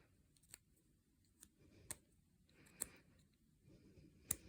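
Faint, sparse clicks of small plastic model-kit parts being handled while sprue cut marks are trimmed, about five clicks with near silence between.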